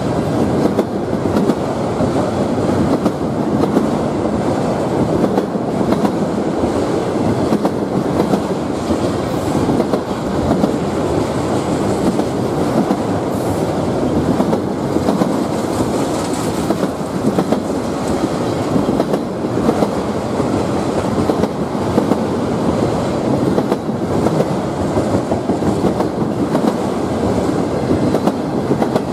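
Freight train of autorack cars rolling steadily past: a continuous rumble of steel wheels with the clickety-clack of wheels passing over rail joints.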